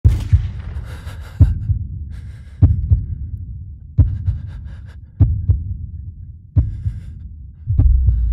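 Heartbeat sound effect: paired low thumps, a strong beat followed by a weaker one, repeating about every second and a quarter. A steady low drone comes in near the end.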